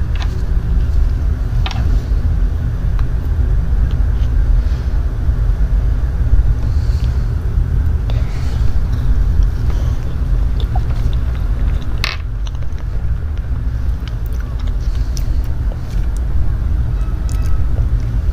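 A loud, steady low rumble, with faint, soft chewing of matcha mousse cake and two sharp clicks, one near the start and one about twelve seconds in.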